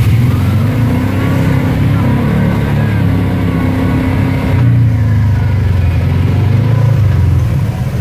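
Side-by-side UTV engine running steadily, revving up and down as the machine drives through a shallow creek.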